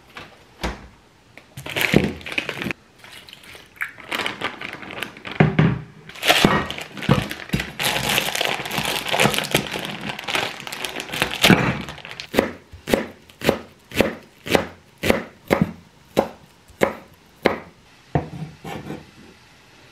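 A plastic zipper bag crinkling as frozen soup is worked out of it into a pot, then a kitchen knife chopping green onions on a wooden cutting board in a steady run of strokes, about two a second.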